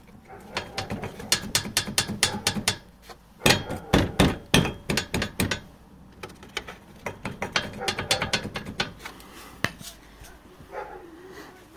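Loose riveted mounting bracket at the front bumper of a Toyota Land Cruiser Prado 150, rattled by hand: quick runs of metal-on-metal clacking in three bursts, with a few single knocks near the end. The rivets have worked loose, and this play is the cause of the car's knock over small bumps.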